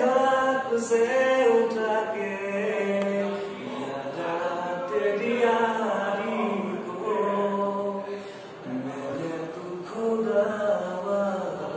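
A man singing a Hindi song solo and unaccompanied, in long held notes that bend and waver in pitch.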